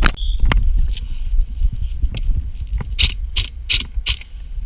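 Airsoft guns firing: sharp single cracks, two near the start, a couple more about two seconds in, then four in quick succession about 0.4 s apart, over a low rumble of wind and handling noise on the microphone.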